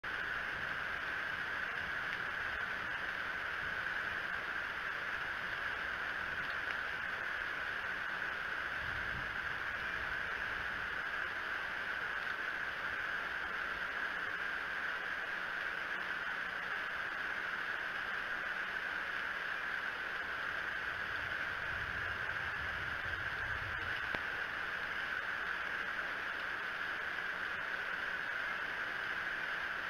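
Steady hiss of rain falling on and around the nest microphone, with faint low rumbles about nine seconds in and again a little past twenty seconds.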